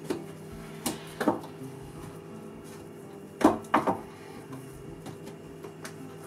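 Racks of raw pork spare ribs handled on a wooden chopping board: a few soft slaps and knocks as the seasoned meat is lifted, turned and laid back down, the loudest pair about three and a half seconds in.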